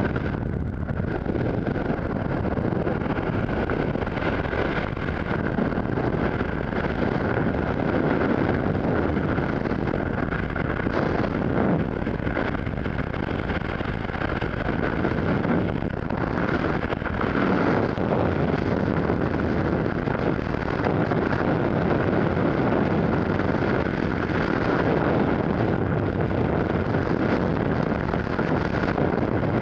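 Steady rush of freefall wind buffeting a helmet-mounted camera's microphone, with no other sound standing out.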